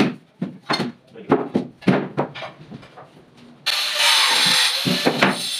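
Voices talking, not in clear words, then background music with a bright, hissy shimmer starts abruptly about three and a half seconds in, with the talking going on under it.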